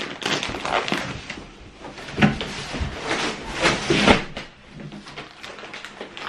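Cardboard mattress box and its plastic wrapping being handled and shifted: cardboard scraping and rustling, plastic crinkling, and several knocks, the loudest about two and four seconds in.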